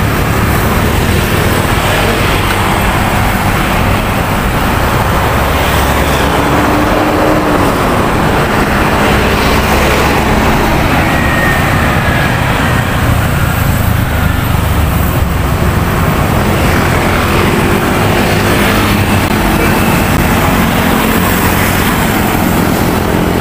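Steady road traffic noise from cars, trucks and motorcycles passing on a busy road.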